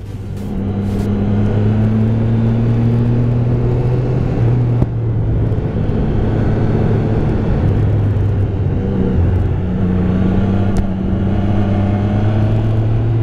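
Triumph Speed Triple 1050's inline three-cylinder engine, fitted with an Arrow exhaust, running at a steady cruise while the bike is ridden. The note holds steady with small shifts in pitch as the throttle changes, about four and nine seconds in.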